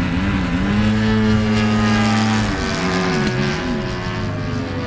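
Engine and propeller of a 58-inch Extra 300 radio-controlled aerobatic plane in flight, a droning note that swoops up and down. It holds steady for about two seconds, then wavers again and settles lower near the end.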